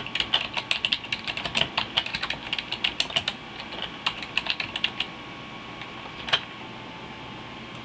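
Typing on a computer keyboard: a quick run of keystrokes for about five seconds, then a pause and one single louder click.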